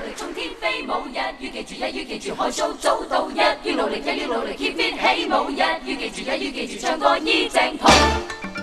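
A vocal group singing a cappella in quick, clipped syllables. A deep thump comes in near the end.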